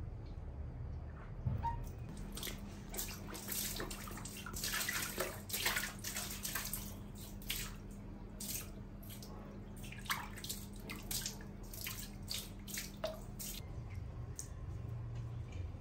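Water splashing and dripping in a bathtub: a string of small, irregular splashes and drips over a steady low hum that stops near the end.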